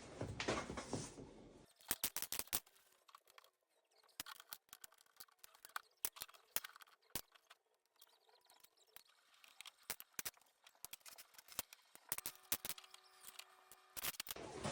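Plastic LEGO bricks being pulled apart and handled: many small, irregular clicks and snaps, with a brief rustle of loose pieces at the start.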